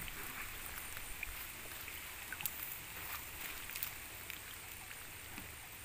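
Faint water trickling and light splashing from a raised mesh lift net, with a few small ticks as hands work through the net picking out small fish.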